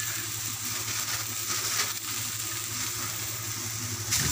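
Noodles and vegetables sizzling in a hot wok, a steady hiss over a low hum, with a few light clicks of the utensil against the wok and a sharper one near the end.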